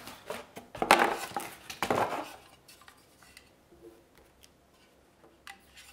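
Handling noise from plastic packaging and a cardboard box: a flurry of sharp clicks and rustles in the first two seconds, then near quiet with a couple of light taps near the end.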